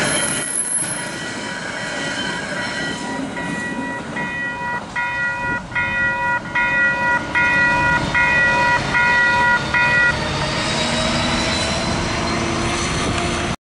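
Western Cullen Hayes electronic level-crossing bells ringing in a steady beat of about three strikes every two seconds, over the fading rail and wheel noise of the end of a freight train clearing the crossing. The bells stop suddenly about ten seconds in as the barriers rise, and a car then drives up and over the crossing.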